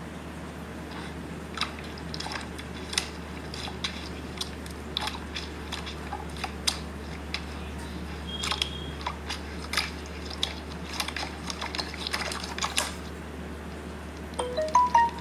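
Slime being squeezed and stretched by hand, giving irregular sticky clicks and pops. A few short, rising chime-like notes sound near the end.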